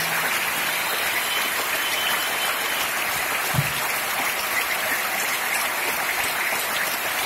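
Large arena crowd applauding steadily, a dense even patter of clapping, with one brief low thump about three and a half seconds in.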